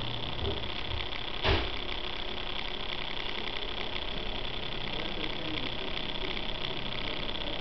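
Small electric motors of a three-motor laser light show running steadily, a high whir with fast, even ticking. A single sharp knock about one and a half seconds in.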